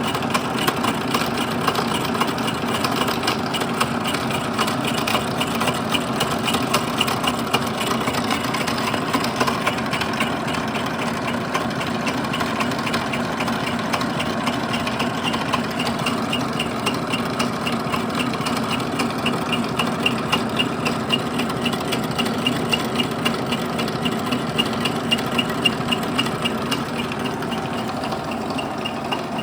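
Bridgeport milling machine running steadily while boring out a welded cast-iron bearing stand, with a regular ticking from the cut.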